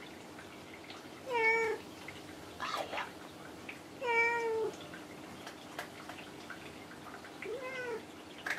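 A domestic cat meowing three times, each meow about half a second long: the first two hold their pitch and then drop at the end, and the third, softer one rises and falls. A short breathy sound comes between the first two meows.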